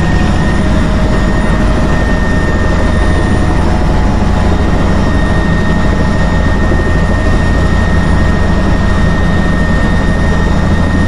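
A helicopter's engine and rotor running steadily on the ground, heard from inside the cabin: a loud, even low rumble with a steady high whine over it.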